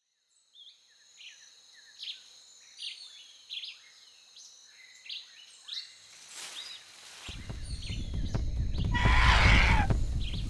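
Birds chirping in short high calls, joined partway through by a deep rushing rumble that swells to its loudest about nine seconds in and then eases off.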